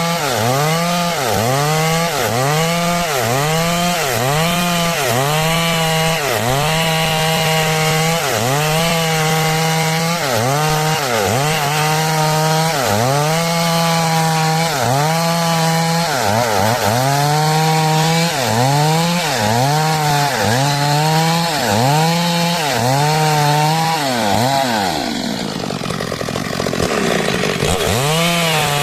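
Stihl MS 382 two-stroke chainsaw cutting through wood. Its engine pitch dips under load and recovers about once a second. Near the end the rhythm breaks for a few seconds, then the engine picks up again.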